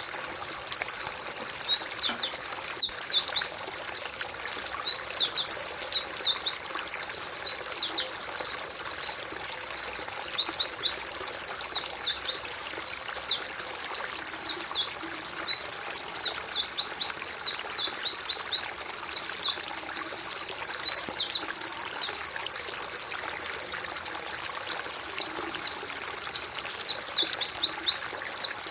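Several white-eyes (pleci) chattering and singing together: a continuous, dense stream of quick, high, downward-sweeping chirps over a steady hiss.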